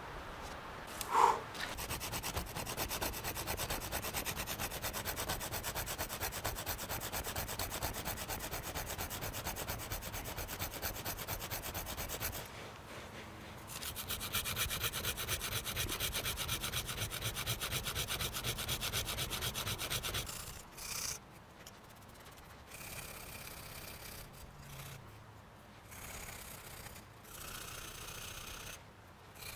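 A thin strip of fence metal being ground back and forth on a rough stone to sharpen it into a fish hook: fast, even rubbing strokes that pause briefly about twelve seconds in, resume louder, then break into shorter spells near the end. A short, sharp, pitched sound about a second in is the loudest moment.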